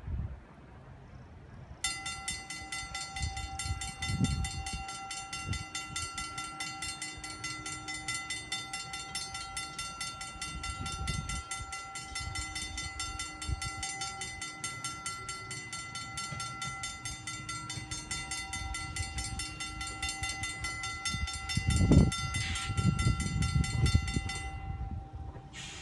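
Electric trolley car approaching on rails, with a steady high-pitched whine that starts about two seconds in and cuts off suddenly near the end. A low rumble runs underneath, and a sharp thump comes a few seconds before the end, the loudest sound here.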